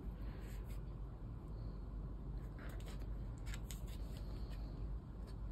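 A few brief paper rustles as the pages and photo cards of an album's photo book are handled and turned, over a steady low room hum.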